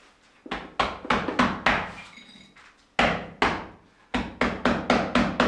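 Sharp taps and knocks of a hand tool on stone as irregular flagstone floor tiles are set, in quick runs of several taps with short pauses between them.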